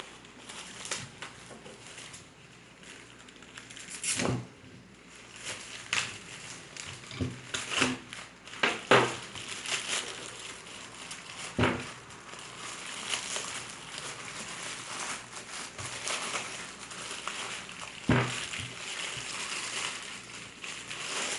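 Plastic and paper packaging crinkling and tearing as a motorcycle big-bore cylinder and piston kit is unwrapped by hand, with scattered sharp knocks and clicks from the handling throughout.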